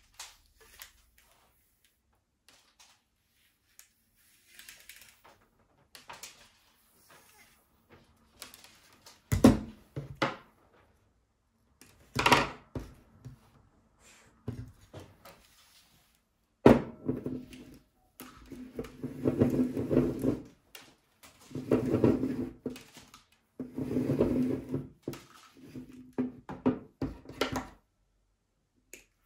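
A spool of stranded wire handled on a tabletop: scattered knocks as it is set down and moved, loudest around the middle, then a run of one- to two-second rattling bursts as wire is pulled off the turning spool.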